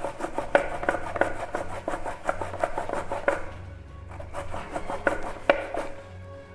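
Cassava root being grated fast by hand on a metal grater: a quick run of rasping strokes that thins out to a few single strokes after about three seconds.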